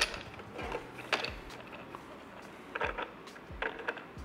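Several separate light clicks and knocks as the plastic screen unit of a Creality Ender 3 S1 Pro 3D printer is handled and fitted against the printer's frame.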